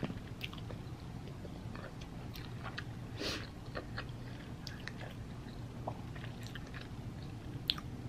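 A person chewing a bite of bacon cheeseburger close to the microphone: soft wet mouth clicks and smacks, with a slightly louder bite or chew about three seconds in and a sharp click near the end.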